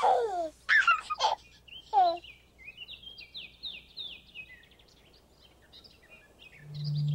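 Birdsong at dawn: three loud falling calls in the first two seconds, then a long run of quick high chirps that fades away.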